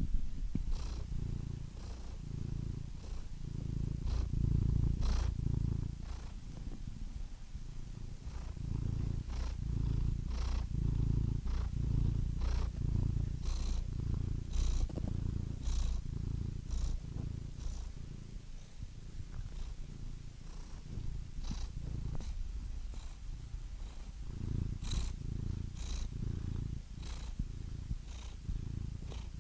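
Domestic cat purring steadily, a low rumble that rises and falls in slow waves, with faint small clicks now and then.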